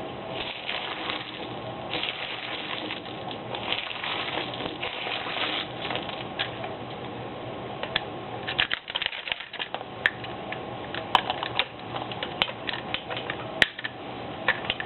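Loose 7.62×39 mm rifle cartridges clattering and clicking as they are dumped and shaken out of an AK-47 75-round drum magazine, an irregular patter that turns into sharper, separate clicks about halfway through. A faint steady hum lies underneath.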